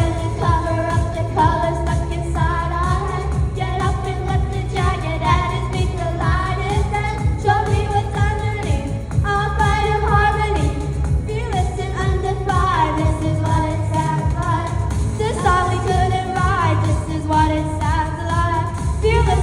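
K-pop song with sung vocals over a steady, heavy bass beat.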